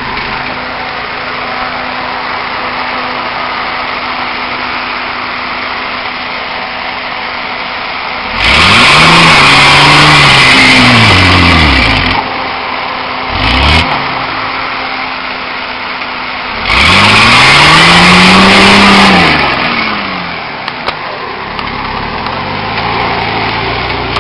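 Nissan Patrol Y60's 4.2-litre straight-six diesel idling, then revved hard twice, about 8 and 17 seconds in, each rev rising and falling in pitch, with a short blip in between. The tyres spin in the dirt and throw soil as it claws its way up out of a hole.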